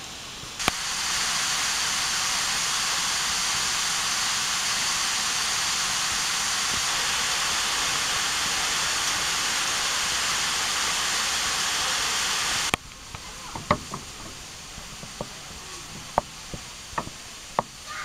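Water rushing steadily over a small cascade into a pond. It starts with a click just under a second in and cuts off abruptly about two-thirds of the way through. A quieter outdoor background follows, with scattered short, sharp sounds.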